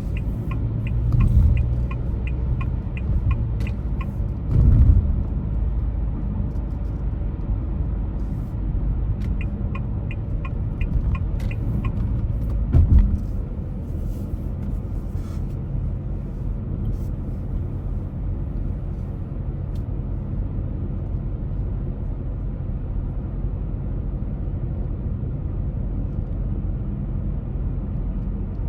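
Steady rumble of a car being driven, with a turn-signal indicator ticking evenly during the first few seconds and again about ten seconds in. A few dull thumps come in the first dozen seconds.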